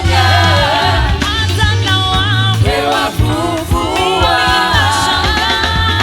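Swahili gospel praise song: voices singing over band accompaniment with steady low notes and a regular beat.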